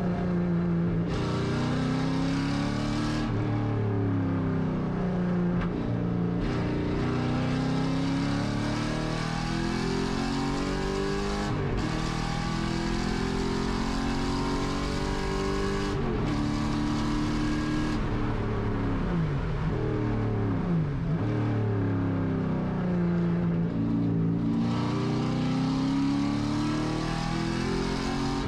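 A Camaro Z/28.R race car's 7.0-litre LS7 V8, heard from inside the cockpit, pulling hard around a track. Its pitch climbs through the revs and drops sharply at each gearchange of the six-speed manual gearbox. It falls away in long sweeps under braking and downshifting about two-thirds of the way through.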